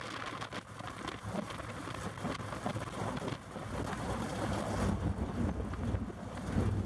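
Wind buffeting the microphone over the low, steady drone of a field of sprint car engines running on the track.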